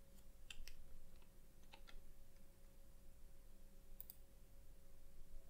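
A few faint, scattered keystrokes on a computer keyboard, irregularly spaced, as code is typed.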